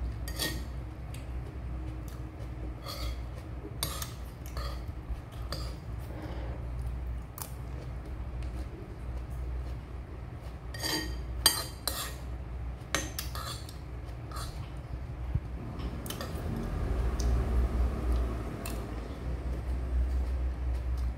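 Metal spoon clinking and scraping against a ceramic bowl while eating: scattered sharp clinks, several in quick succession about eleven to thirteen seconds in, over a low steady hum.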